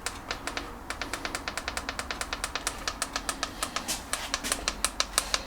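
EAFC portable tire inflator's small piston compressor running while pumping up a tire, a fast, even clatter of about eight to ten clicks a second that grows louder toward the end as the pressure climbs.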